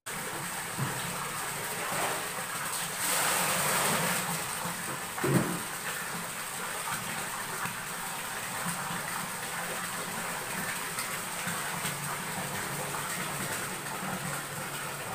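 Water pouring from a hose into a plastic drum: a steady splashing stream, louder for a second or so about three seconds in, with a single thump about five seconds in.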